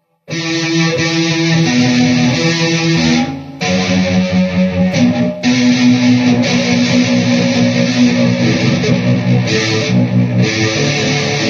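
Electric guitar played through a Peavey VYPYR X2 modelling amplifier: held chords and notes, starting just after a brief silence, with a short drop about three and a half seconds in and a brief break a couple of seconds later.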